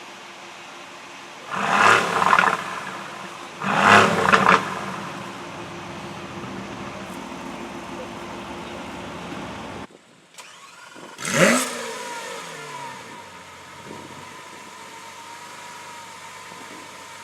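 Exotic sports car engine revved hard in two short blips a couple of seconds apart, over steady engine running; after a brief drop-out, another sharp rev with the pitch sweeping, then settling to a steady hum.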